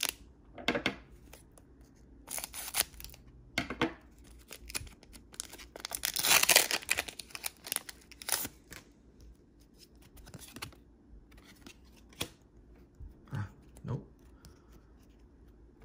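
Foil wrapper of a Pokémon trading-card booster pack crinkling in the hands, then torn open with a long ripping sound about six seconds in, followed by short rustles and clicks as the cards are pulled out.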